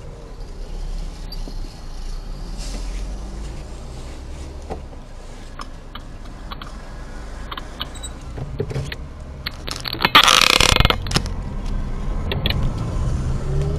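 Car engine idling, heard from inside the cabin, with small clicks and rattles as the driver's seatbelt is pulled across and buckled. About ten seconds in, a loud rush of noise lasts about a second. The engine then pulls away, rising in pitch near the end.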